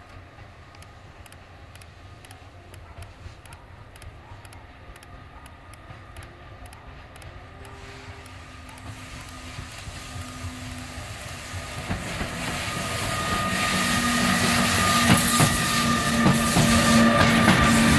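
PKP Intercity EU160 Griffin electric locomotive hauling a passenger train, approaching and passing close, growing steadily louder. A steady whine rides over the wheel-on-rail noise as it goes by.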